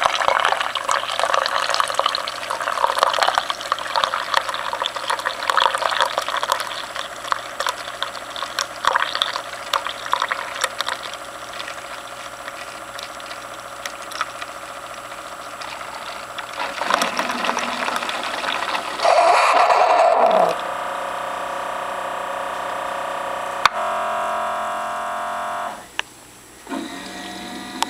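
Keurig coffee maker dispensing hot cocoa into a cup: a stream of hot liquid pouring, easing off after about twelve seconds. Near the end the machine sputters and gives a steady mechanical hum in several spells as the brew finishes.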